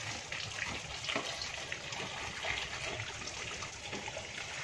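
Water pouring and splashing steadily, with many small spatters.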